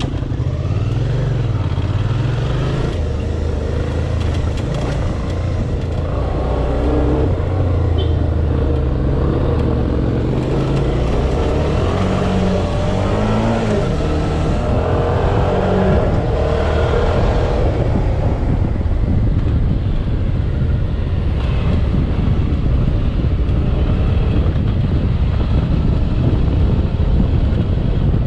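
Dual-sport motorcycle riding on a trail, its engine revving up and down through the gears, with wind buffeting the bike-mounted microphone growing heavier from about halfway through.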